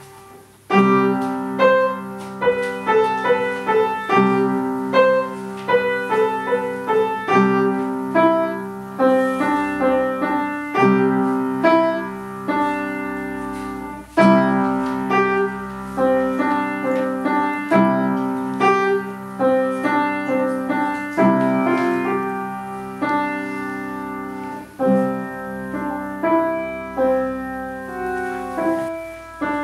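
Upright acoustic piano played solo: struck chords and melody notes in steady phrases, starting about a second in after a short pause.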